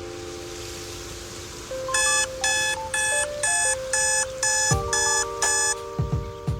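Electronic alarm clock beeping: about eight short, shrill beeps, roughly two a second, that stop after about four seconds. Background music with held synth chords plays under it, and a few low thuds come near the end.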